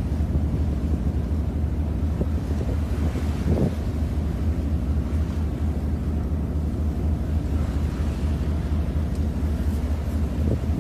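Wind buffeting the microphone outdoors, a steady low rumble that covers the other sounds.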